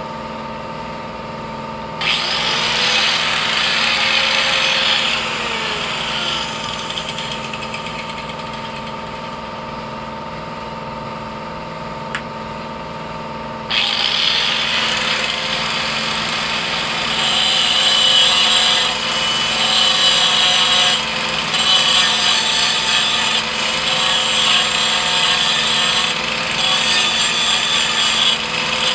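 Corded angle grinder cutting steel bar on a garden tractor frame. A short run of about three seconds winds down with a falling pitch. About halfway through it starts again and cuts steadily, the grinding sound breaking off and coming back several times, over a steady background hum.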